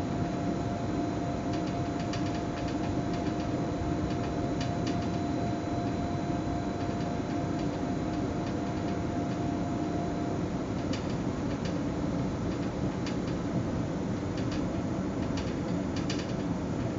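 Zürich S-Bahn train running, heard from the driver's cab: a steady rumble of the train on the track, with scattered sharp clicks from the wheels. A steady hum stops about ten seconds in.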